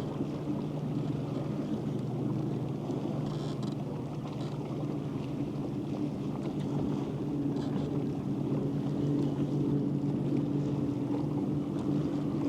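Boat motor running with a steady low hum, its higher tone growing stronger about halfway through, with a few faint short rattles on top.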